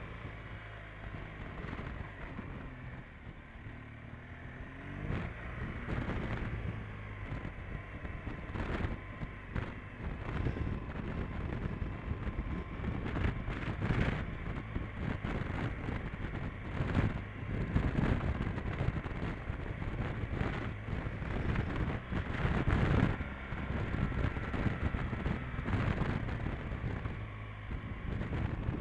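Motorcycle engine running at low road speed, its pitch rising about five seconds in, with gusts of wind buffeting the microphone.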